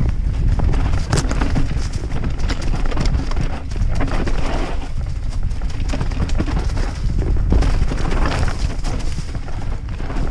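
YT Capra enduro mountain bike rattling down a rocky, leaf-covered trail: tyres rolling over stones and roots with a steady rumble and many uneven knocks from the bike.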